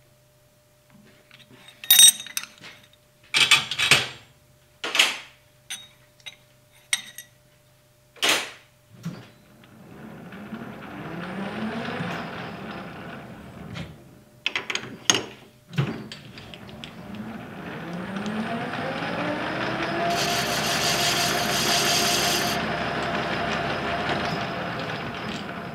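Metal lathe with a four-jaw chuck: a series of sharp metal knocks as the nut is set and the chuck worked, then the lathe spins up with a rising whine and winds down. It is started again and runs at a steady speed, with a couple of seconds of scraping hiss, then slows near the end.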